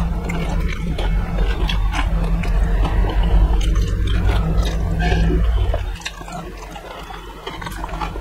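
Close-miked eating of pani puri: crisp puri shells crunching in quick clicks while the spiced water is chewed and slurped. A loud low rumble underneath drops away about six seconds in.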